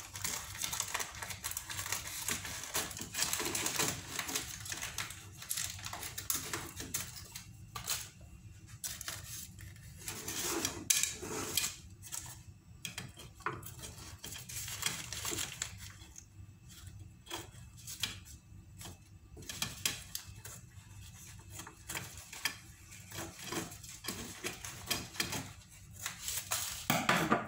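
Kitchen scissors cutting away excess wax paper from around a pastry-lined pan: irregular runs of sharp snips and clicks with the paper rustling.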